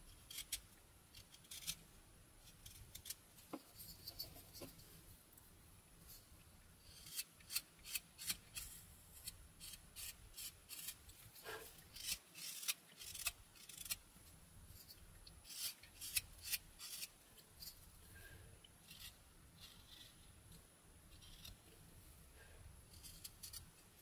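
Mora 122 carving knife slicing thin shavings from a basswood blank: a string of short, crisp cutting strokes, busiest in the middle.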